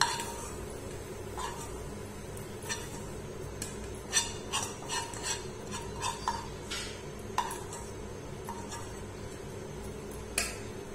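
Metal spoon scraping and clinking against a metal kadhai and steel plate in a string of irregular light clinks and scrapes, as freshly cooked khoa is scraped out of the pan onto the plate.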